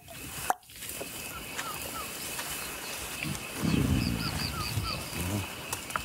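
Tropical outdoor ambience: a steady high insect drone with birds chirping in short repeated notes. About halfway through comes a low, drawn-out rumbling vocal sound lasting around two seconds, the loudest thing here.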